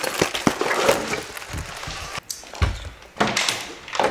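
Handling noise from a zippered case and other items being moved in a plastic drawer organizer: rustling and light knocks, then a dull thump about two and a half seconds in and a couple of sharper knocks.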